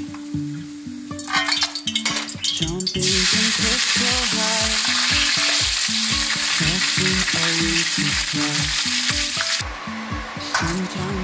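Hot olive oil in a frying pan, quiet at first, then a few clattering knocks and a loud, steady sizzle from about three seconds in as halved cherry tomatoes fry in it. The sizzle drops away near the end. Background music with a steady beat plays underneath.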